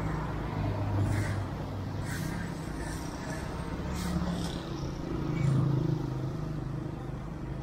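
Street noise with a motor vehicle engine running: a steady low engine hum under general traffic noise.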